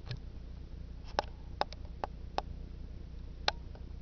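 About seven short, light clicks at uneven intervals over a steady low hum, the sharpest click late on.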